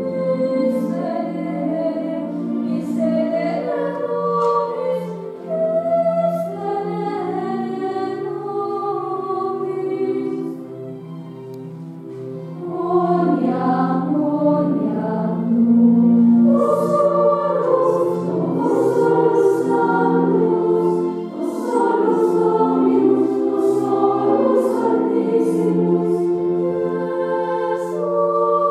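A group of voices singing a church hymn. It grows softer about ten seconds in, then the voices come back louder from about thirteen seconds.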